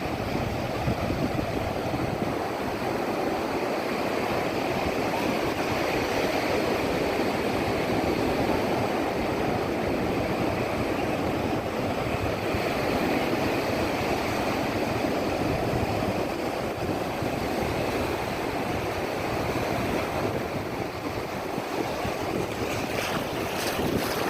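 Sea waves breaking and washing up on a beach: a continuous rushing surf that swells and eases, with a few short clicks near the end.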